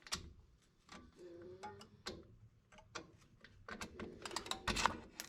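Small metal clicks and clinks of pliers working a drum-brake shoe hold-down spring and its top-hat retainer cup. A quick run of clicks builds up near the end and ends in a thump as the retainer fails to stay seated.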